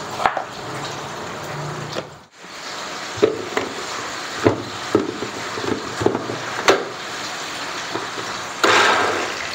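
Kitchen handling sounds: a knife cutting through a tomato on a chopping board, then several sharp knocks as chopped ingredients go into a plastic blender jar and its lid is handled, over a steady background hiss. A louder rush of noise starts near the end.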